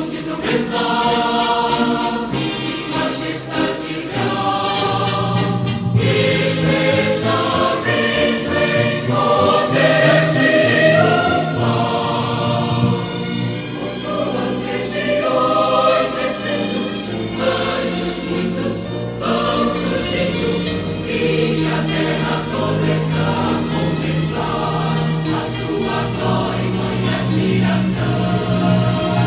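A mixed choir singing a gospel hymn in sustained chords, several voice parts at once, with a steady bass line underneath.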